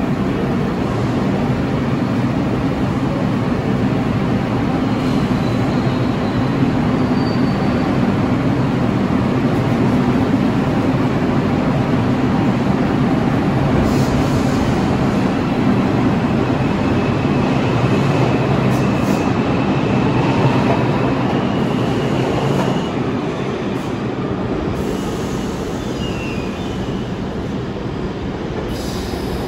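R142 New York City subway train pulling out of an underground station and running off into the tunnel: a steady rumble of wheels on rail, with faint high wheel squeal and a rising whine in the second half, easing slightly near the end.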